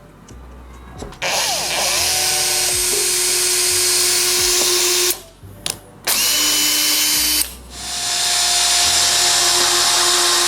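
Power drill boring a pilot hole into the top of a platform ladder. It runs in three spells: a steady run of about four seconds, a short burst, then another long steady run.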